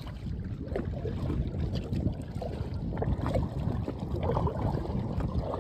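Water splashing and lapping around an inflatable kayak under way, in many short irregular splashes, over a steady low wind rumble on the microphone.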